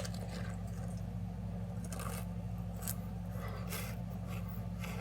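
A mouthful of Pringles potato crisps being chewed, a few separate crunches about a second apart, over a steady low hum.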